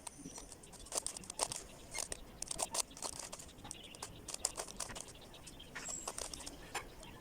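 Plastic Rubik's Cube being turned by hand: quick, irregular clicks and clacks as its layers are twisted.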